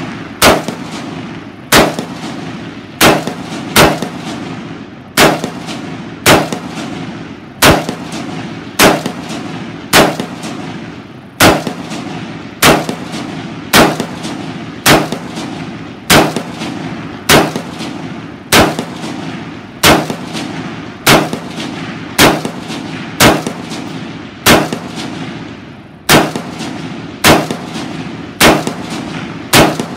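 Beretta ARX-100 semi-automatic rifle firing 5.56 mm rounds in slow, steady semi-auto fire, around thirty shots at roughly one a second. Each shot is a sharp crack followed by a short echo.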